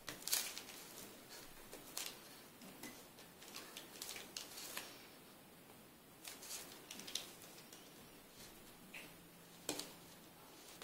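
Scraping and picking old adhesive residue off a phone's plastic frame with a small tool: irregular faint scratches and clicks, with a louder click just after the start and another near the end.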